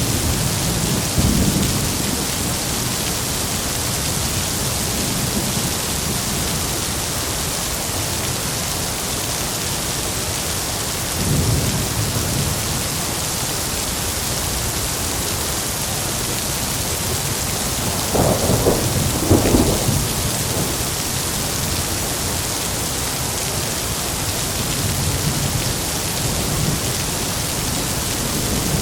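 Heavy rain falling steadily, with rumbles of thunder: one about a second in, another about a third of the way through, the loudest and longest about two-thirds of the way through, and a faint one near the end.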